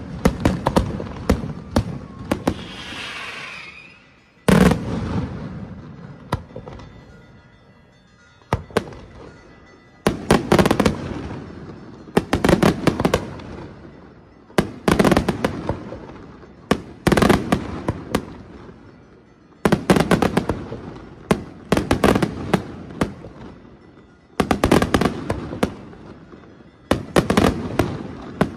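Daytime aerial fireworks shells bursting in salvos. About every two to two and a half seconds a cluster of sharp bangs goes off, each cluster dying away in a fading rumble before the next.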